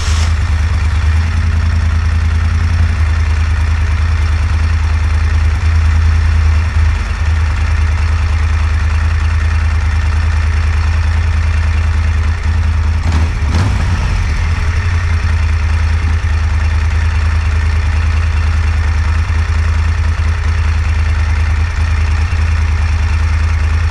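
2016 Moto Guzzi Griso 1200 8V's air-cooled transverse V-twin idling steadily just after start-up, its throttle bodies being balanced at idle and running pretty well balanced.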